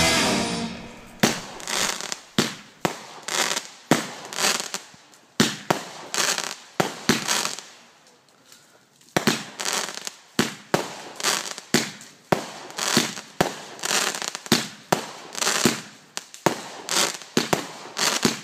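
A multi-shot fireworks barrage firing: a long run of sharp bangs, about two a second, each trailing off, with a short lull about halfway through before the shots resume.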